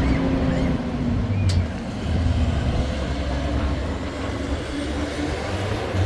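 Engine of a blue Zamyad pickup truck running close by as it moves off, a steady low rumble, with one short sharp knock about one and a half seconds in.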